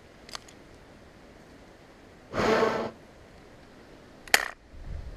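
A heavy exhale lasting about half a second, then a single sharp metallic click from the broken-open action of an Astra 850 12-gauge side-by-side shotgun as it is handled, with faint handling clicks before and a low rumble after.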